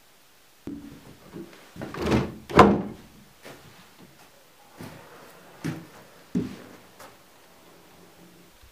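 Old plank door of a log building being unbolted and opened by hand: a run of wooden knocks and thuds from the latch and door, loudest as two knocks close together about two seconds in, then lighter knocks every half second to a second.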